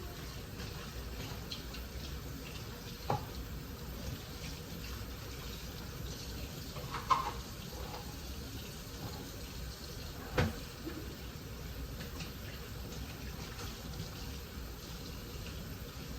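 A steady watery hiss in a kitchen, broken by three sharp knocks of kitchenware, the first about three seconds in and the last about ten seconds in.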